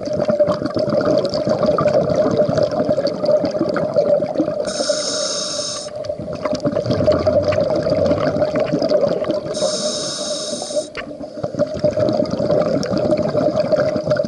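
Scuba breathing heard underwater: a hissing regulator inhale twice, about five seconds apart, with crackling, bubbling exhaled air in between and a steady hum underneath.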